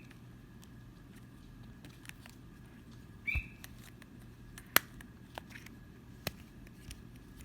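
Simple dimple fidget toy being handled and pressed: faint scattered small clicks and taps, with two sharper clicks in the second half.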